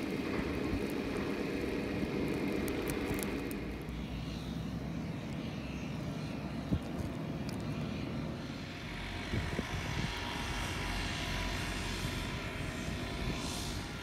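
Steady drone of a distant engine running, heard through wind noise on the microphone.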